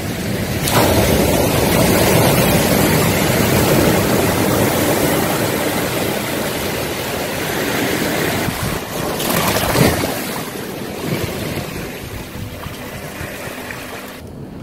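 Sea waves washing over a flat rock ledge and breaking on a pebbly shore: a steady rush of surf that swells about a second in, surges again near ten seconds, then eases.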